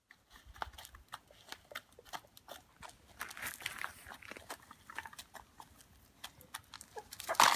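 An animal eating: irregular crisp crunches and clicks, a few a second. Near the end comes a sudden much louder rustling burst.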